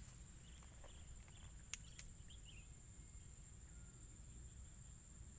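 Near silence with faint outdoor ambience: a steady high insect drone over a low rumble, with two soft clicks about two seconds in.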